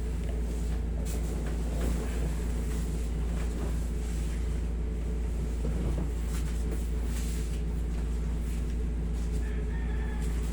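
A steady low hum runs throughout, with a few brief soft rustles. A rooster crows faintly in the background near the end.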